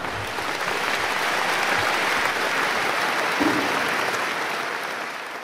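Live audience applauding: dense, even clapping that holds steady and begins to die down near the end.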